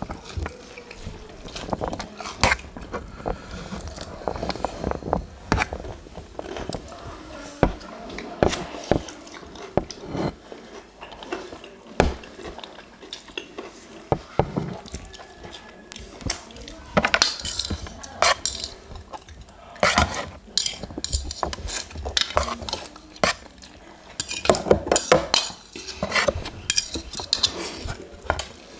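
Close-miked eating: metal forks clinking and scraping on a metal tray and a ceramic bowl, with noodle slurping and chewing in between. The sharp clicks come irregularly, bunching into busy runs several times.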